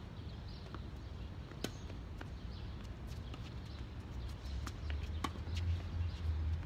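Tennis ball struck by rackets and bouncing on a hard court during a rally: a series of sharp pops, roughly one every second, the clearest about one and a half seconds in. A low rumble grows beneath them near the end.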